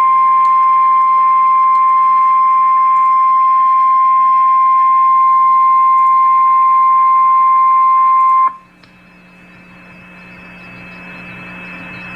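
Weather radio Emergency Alert System warning alarm tone, the single 1050 Hz tone that announces a severe weather warning. It is one long steady high beep that cuts off suddenly about eight and a half seconds in, leaving radio hiss that slowly grows louder over a faint low hum.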